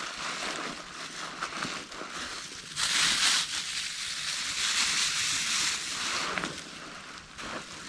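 A thin plastic bag crinkling and rustling as it is pulled out of a backpack and shaken open, loudest from about three seconds in until shortly before the end.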